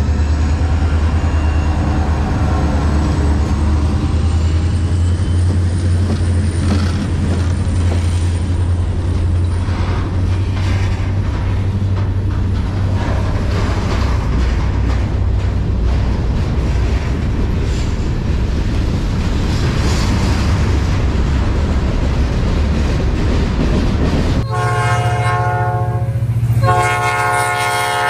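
EMD SD40-2 diesel locomotives rumbling as they pass close by, followed by freight cars rolling past on the rails. About 24 seconds in, an approaching SD40-2's air horn sounds a chord of several notes in two blasts.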